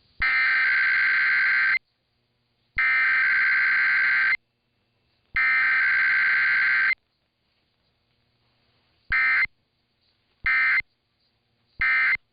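Emergency Alert System SAME digital header: three identical buzzing data bursts of about a second and a half each, sent a second apart. Then come three short bursts of the same warbling tone, the end-of-message code.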